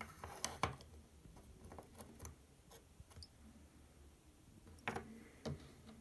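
Faint clicks and taps of a plastic wireless door-sensor magnet block being handled and set down on a wooden table beside the opened sensor. They come in short clusters, the loudest near the start and about five seconds in.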